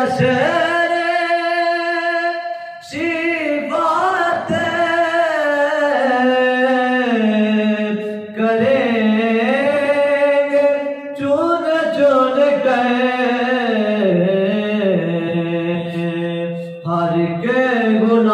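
A solo voice singing a naat, a devotional poem in praise of the Prophet, in long held notes that waver and bend, with short breaths between the phrases.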